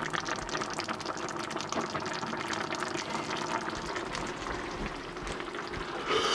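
Thick bolognese sauce simmering in a pan, a steady crackle of small bubbles popping, as a wooden spoon stirs through it. Near the end a short breath blows on a hot spoonful.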